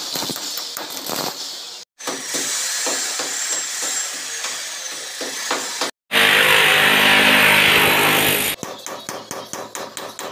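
Hammer striking a chisel against a plastered concrete wall, quick light strokes several a second, chipping away plaster. About six seconds in, a louder steady rushing noise with a low hum takes over for two and a half seconds before the tapping returns.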